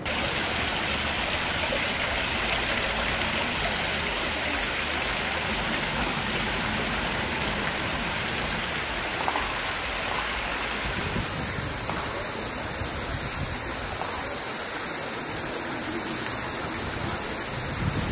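Water from a sculpted stone wall fountain splashing steadily into its basin, an even, continuous sound of falling water.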